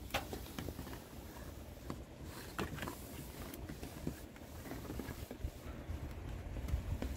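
Scattered faint clicks and taps from handling work, over a low steady rumble.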